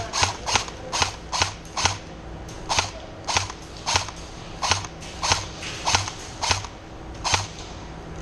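Airsoft gun firing a string of single shots, each a sharp pop. They come quickly at first, then slow to a steady pace of about one every half second or so, and stop shortly before the end.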